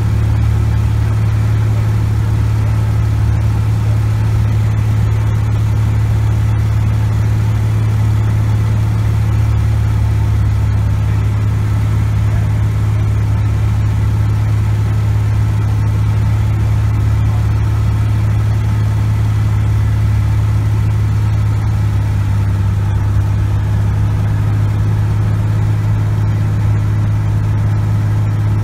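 Cessna 180's six-cylinder Continental O-470 engine and propeller droning steadily in flight, heard from inside the cockpit, with a strong deep hum and an even level throughout.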